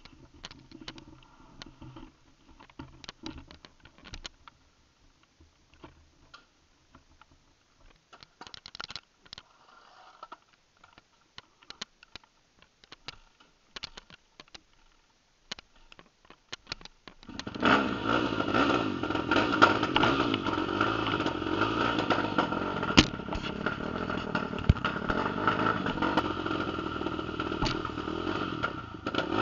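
A 2006 Yamaha YZ450F's single-cylinder four-stroke engine, fitted with a freshly rebuilt carburetor and a White Brothers full stainless exhaust, starts up about 17 seconds in and keeps running steadily. Before that there are only faint scattered clicks and scuffs.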